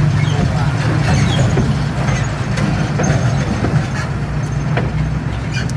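Heavy diesel earthmoving machinery running steadily, a low engine drone with scattered clicks and knocks over it.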